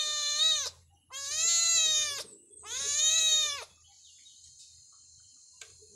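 Kitten meowing in long, drawn-out cries, three in a row, each held on one pitch and then dropping as it ends.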